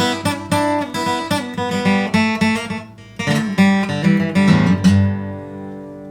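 Acoustic guitar strummed in a steady rhythm, playing the closing instrumental bars of a gospel song. It pauses briefly about three seconds in, then ends on a final chord that rings and fades.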